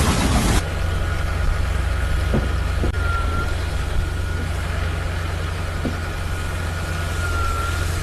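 An engine idling with a steady low drone. A louder hiss cuts off abruptly just after the start, and a few faint knocks come during the idling.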